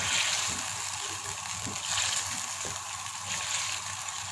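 Creamy chicken karahi sauce sizzling and bubbling in a pan over a raised flame as its liquid cooks down, a steady hiss with faint crackles.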